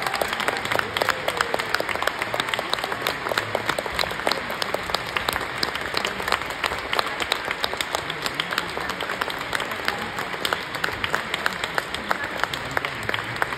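Theatre audience applauding: dense, steady hand-clapping with no letup.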